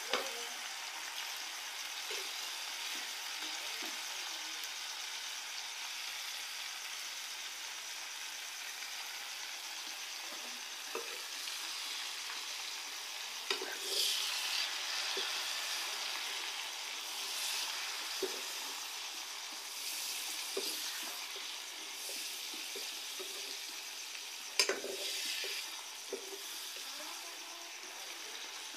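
Pork and mustard greens sizzling as they fry in a kadai, stirred with a metal ladle. A steady sizzle runs throughout, with a few sharp clinks of the ladle against the pan, the loudest about 14 and 25 seconds in.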